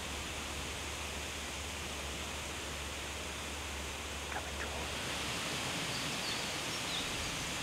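Steady outdoor woodland ambience: an even background hiss with a low steady hum, and a few faint high chirps around the middle.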